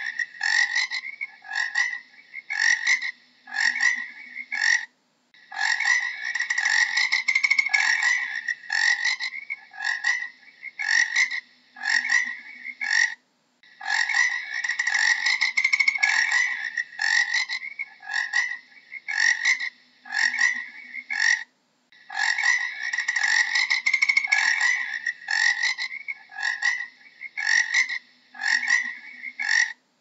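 Frog croaking: a dense run of rapid calls lasting a couple of seconds, then separate croaks about half a second apart, the same pattern coming round about every eight seconds.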